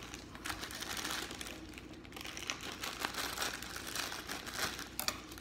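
Clear plastic zip-top bag crinkling as it is handled and pulled open: an irregular run of soft crackles, with a few sharper clicks near the end.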